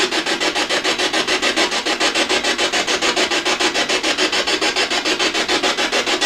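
P-SB7 ghost box spirit box sweeping through radio stations, giving a fast, even chop of radio static at about eight pulses a second.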